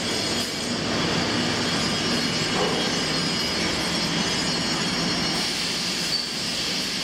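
Steady machinery din of a leather watch-strap factory floor, with several faint high whines running under a dense even noise.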